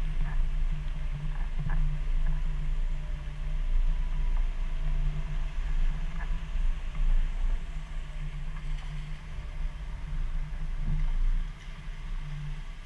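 Jeep engine running at low revs, a steady low drone that wavers in level, with a few scattered knocks; it drops in level about a second before the end.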